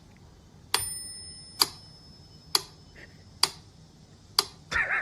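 Sharp, regular ticks about once a second, like a clock ticking; one tick about a second in rings on briefly like a small bell. Near the end a short wavering sound comes in.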